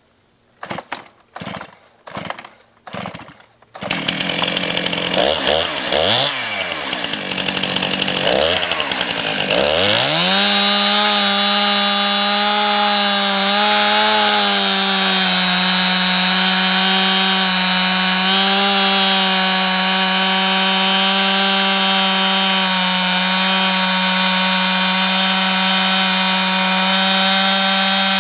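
Two-stroke chainsaw on a chainsaw mill: four quick pulls on the starter cord, the engine catches about four seconds in and is revved twice, then it is held at a steady full-throttle pitch for the rest of the time, ripping lengthwise through the log.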